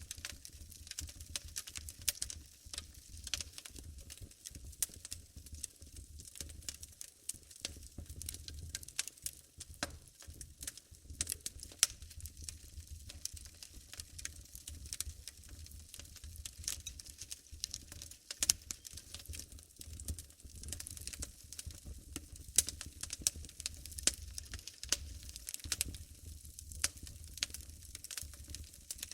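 Wood fire crackling in a fireplace: a steady run of irregular sharp pops and snaps over a low rumble of the flames.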